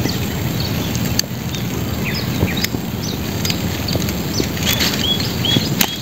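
A steady low rumbling noise, with a few sharp clicks as hands work a bamboo-and-net crab trap. Birds chirp over it: short calls through the middle and a hooked call repeated three or four times near the end.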